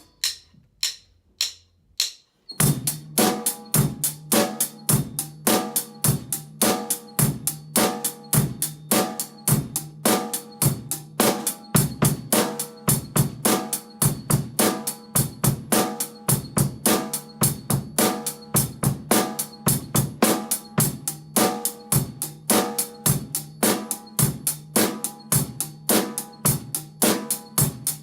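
Drum kit played: a few light, sparse hits, then a steady fast groove of snare, bass drum, hi-hat and cymbal from about two and a half seconds in.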